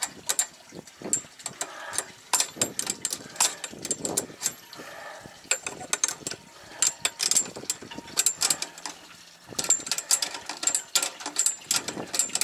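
Irregular sharp metallic clicks and clanks of hand work on a fender holder bracket: it is being fitted to a boat's railing and its fastenings tightened with an open-end wrench.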